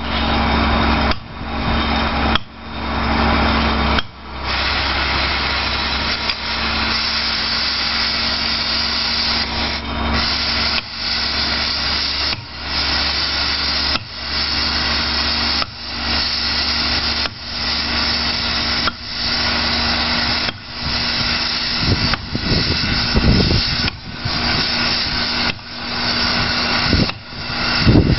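Sledgehammer blows on a row of steel plug-and-feather wedges, about one every second and a half, driving them in to split a block of brownstone, over the steady running of a heavy machine's engine.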